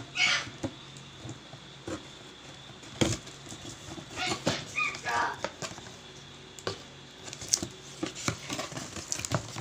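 Cardboard box being handled and its flaps opened: scattered knocks, taps and scrapes of cardboard, the sharpest about three seconds in. A few short high-pitched whines come near the start and around five seconds in.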